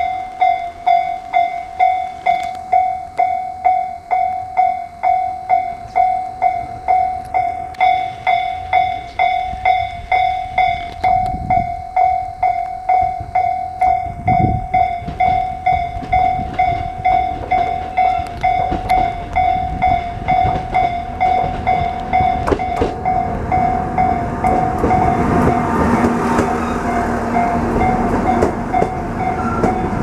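Japanese railway level-crossing alarm ringing its electronic bell steadily at about one and a half strokes a second, signalling an approaching train. From about three-quarters of the way through, the rumble of the train pulling in rises under the bell.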